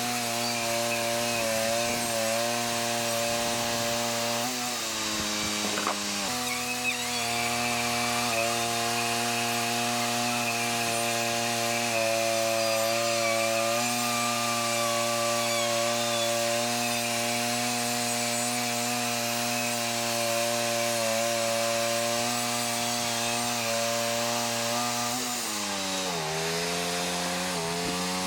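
WoodMizer LT40 Wide band sawmill running steadily as its band blade cuts through a dense pecan log. The engine pitch dips briefly under load about five seconds in and again near the end.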